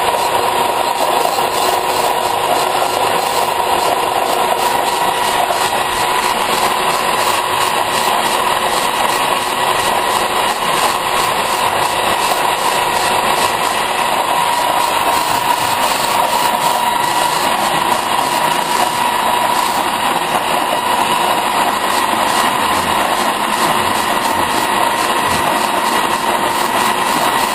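Metal lathe running steadily as a boring bar takes the last pass through the bore of a large pulley, a steady whine over the machine noise.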